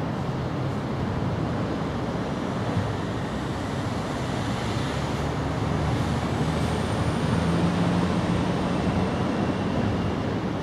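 Steady outdoor background noise with a low rumble throughout and no distinct events.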